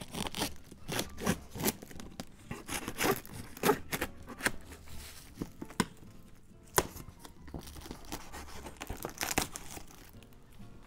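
A knife slitting through blue plastic wrap and packing tape on a cardboard box, with irregular ripping and crinkling as the plastic is cut and pulled apart.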